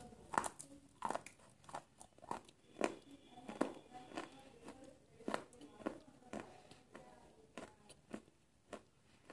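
A person biting and chewing a crunchy snack: sharp crunches about twice a second, coming less often near the end.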